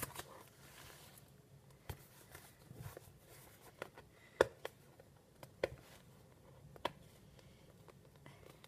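Scattered light taps, clicks and scrapes of hands picking at a taped cardboard shipping box, the sharpest tap about halfway through, over a faint low hum.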